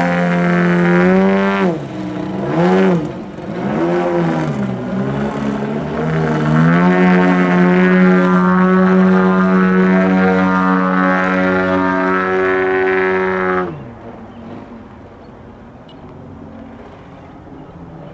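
Engine and propeller of an AJ Laser radio-controlled aerobatic plane in flight. The pitch swoops down and back up twice as the throttle and manoeuvres change, then holds at a steady high power. About fourteen seconds in it is throttled back abruptly to a much quieter low drone.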